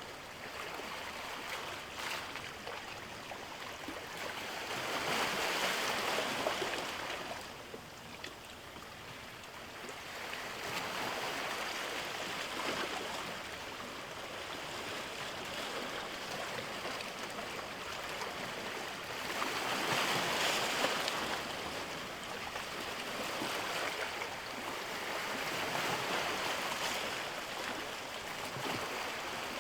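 Ocean waves: a steady rush of surf that swells louder three times as waves come in.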